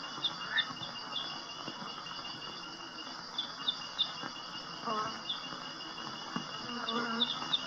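Insects trilling steadily at a high pitch, with short higher chirps recurring now and then.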